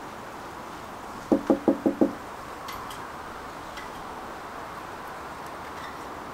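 Knocking on a door: five quick raps in a row, about a second and a half in.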